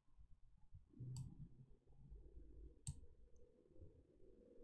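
Two faint computer mouse clicks, about two seconds apart, over a faint low hum.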